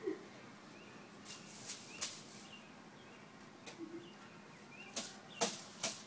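A few sharp knocks or clicks, one about two seconds in and three in quick succession near the end, over a faint quiet background.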